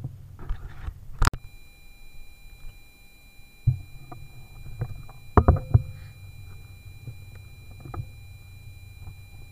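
Scattered knocks and thumps from the air rifle and its scope-mounted camera being handled and re-aimed, over a low steady rumble. There is a sharp click about a second in, and the loudest cluster of knocks comes a little past halfway.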